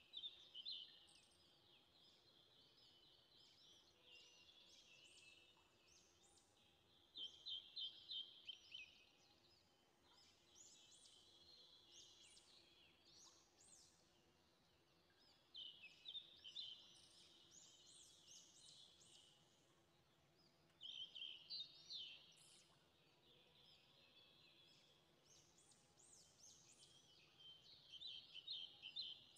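Faint birdsong: short, rapid trilling phrases repeated every five to seven seconds over a quiet background.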